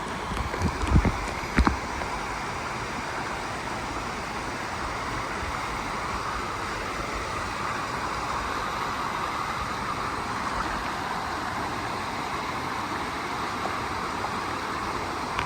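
Rushing water of a mountain stream, a steady hiss. There are a few low knocks in the first two seconds.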